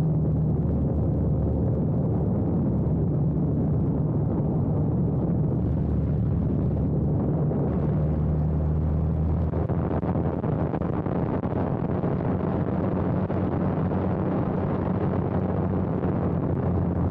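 Light biplane's piston engine running steadily in flight, with a constant rush of wind over the airframe.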